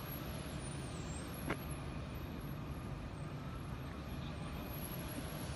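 Steady low rumble of vehicle noise, with one brief sharp sound about a second and a half in.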